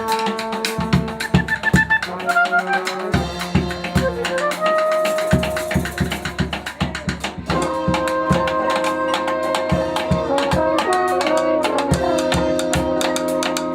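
Brass band music: horns holding and changing notes over a steady beat of drum strokes.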